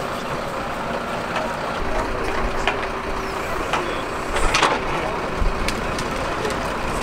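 Truck engine running steadily, with scattered light knocks and one brief louder burst of noise about four and a half seconds in.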